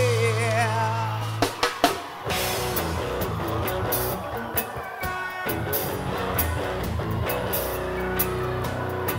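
Live reggae band playing: a held sung note wavers and trails off over the first second and a half, a few sharp drum hits follow, and then the band plays on with a steady beat of drums and cymbal strokes.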